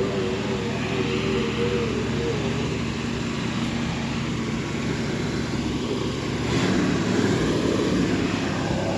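Gasoline engine of an old Ford cab-over fire truck idling steadily, running again after sitting unused in storage for over two years. A higher whine rides on it for the first couple of seconds, and about six and a half seconds in it gets a little louder.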